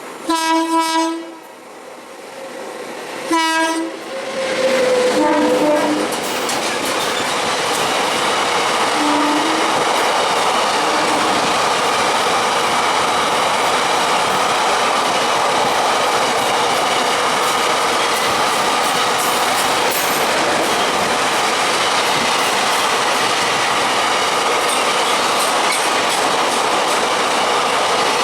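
Locomotive horn sounding two blasts, a longer one first and a short second one about three seconds in. Then a passenger train passes at speed, its wheels clattering over the rail joints in a steady, loud rush.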